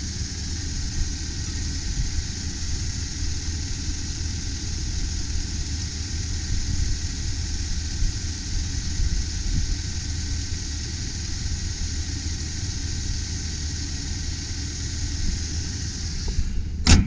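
2001 Chevrolet Silverado 2500's engine idling steadily and smoothly, with no roughness.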